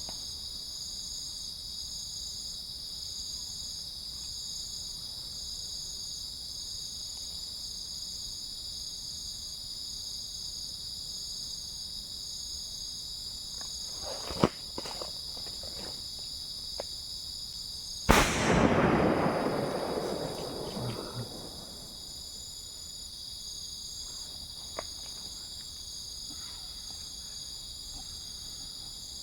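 A firecracker going off with one loud bang, its echo fading over a few seconds, after a smaller sharp crack a few seconds before. Insects drone steadily throughout.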